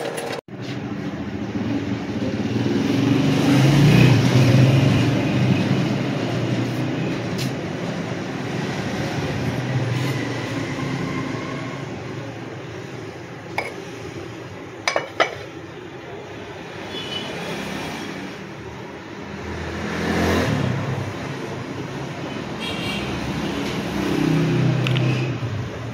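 Road traffic: vehicles pass one after another, each swelling and fading, with a few sharp clicks about halfway through.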